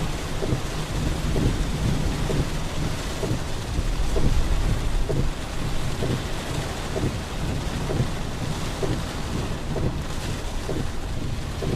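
Heavy thunderstorm rain: a steady downpour with drops striking close by in quick, irregular ticks, under a deep low rumble of thunder that swells about four seconds in.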